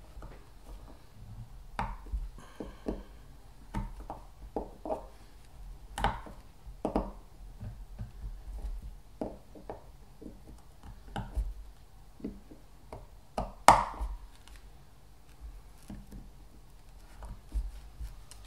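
Irregular clicks and taps of pliers against the small metal-and-plastic brush holder of a Valeo car alternator as it is handled and worked, with one sharper click late on.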